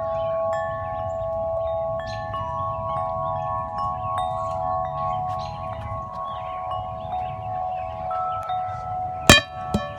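Several large tuned wind chimes ringing in the wind, with overlapping long-ringing notes struck again every second or so over a low wind rumble. Two sharp clacks near the end are the loudest sounds.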